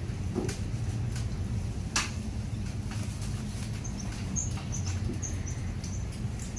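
Wet rubbing and squelching of hands working shampoo lather into a wet Maine Coon's coat, with scattered small clicks and a sharper click about two seconds in, over a steady low hum. A few brief high chirps come in the second half.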